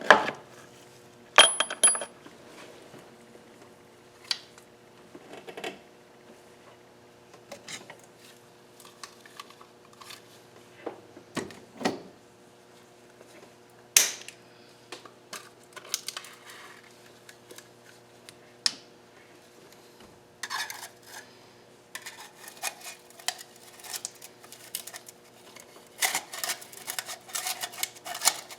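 Light metallic clinks and taps of engine rod-bearing shells, rod caps and hand tools being handled while the connecting-rod bearings are fitted. The taps are sparse at first and come thick and fast near the end.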